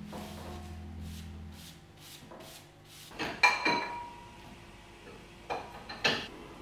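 A small straw hand broom brushing crumbs across a wooden tabletop in quick, even strokes. About three and a half seconds in, crockery clinks with a short ringing tone as it is put into a kitchen cupboard, followed by two more clinks near the end.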